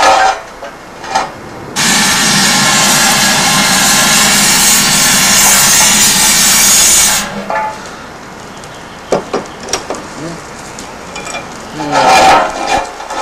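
A loud, steady rushing hiss starts abruptly about two seconds in and cuts off abruptly some five seconds later. Brief knocks and scrapes follow, then a short burst of voice near the end.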